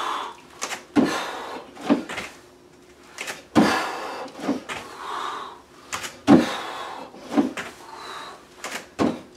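Bare feet landing with thuds on an aerobic step and rubber floor mat during jumping squats: a heavy landing about every two and a half to three seconds, with lighter footfalls between, and hard breathing after the jumps.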